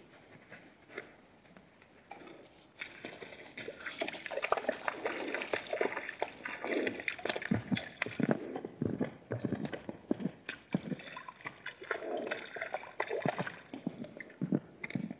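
Hartmann's mountain zebras drinking and wading at a waterhole: irregular splashing and slurping in the water. It is sparse at first and becomes dense from about three seconds in.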